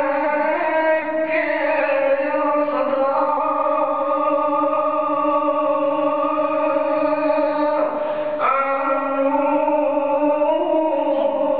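A man singing a Punjabi kalam (Sufi verse) in long, drawn-out held notes that glide between pitches. He breaks off briefly about eight seconds in.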